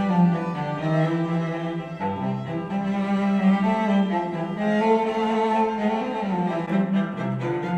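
Classical music with bowed strings and long held low notes, played back through a pair of JBL 306P MKII studio monitors and picked up by a microphone in the room.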